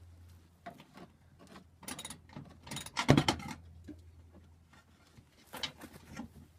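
Scattered clicks, taps and rattles of a hand tool working at small nuts behind a car's plastic inner fender liner, with the loudest knock a little past three seconds in, over a steady low hum.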